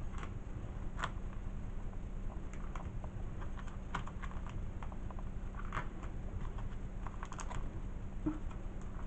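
Plastic comic-book bags crinkling and clicking in short, scattered bursts as bagged comics are handled and shifted in a stack, over a steady low hum.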